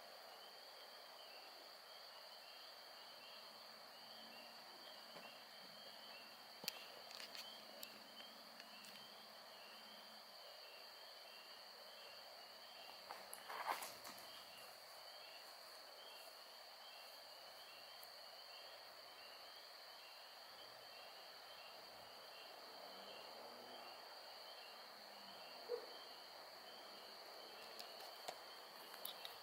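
Spring peeper frog chorus: many short, high peeps repeating over one another, over a steady high-pitched drone. One brief louder knock or rustle comes just before halfway.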